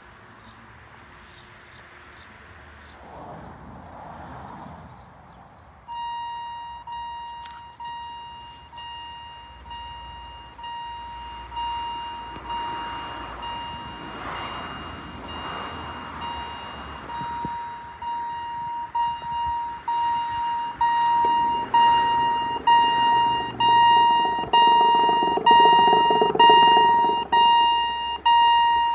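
Level-crossing warning bell starts about six seconds in and rings in a steady series of strikes, roughly one a second, growing louder. It signals that the barriers are about to come down. Birds chirp before it, and a rushing noise swells under the bell near the end.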